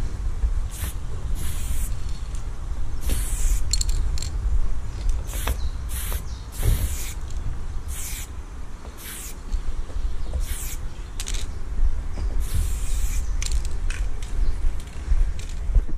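Aerosol spray paint can hissing in many short strokes, each well under a second with brief gaps between, as white outlines are sprayed on a wall. A steady low rumble runs underneath.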